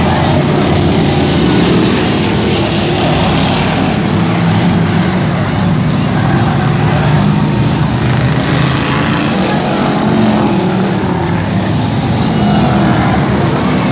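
Engines of several stock cars and pickup trucks racing around a dirt-and-asphalt track: a loud, continuous engine drone whose pitch keeps rising and falling as drivers get on and off the throttle.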